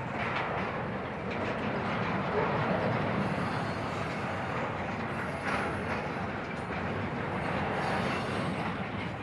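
Intermodal freight train rolling past, its wheels running steadily on the rails.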